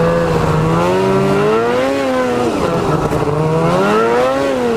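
Ski-Doo snowmobile's two-stroke engine running under throttle while riding. Its pitch rises and falls twice as the rider speeds up and eases off, dropping sharply at the end.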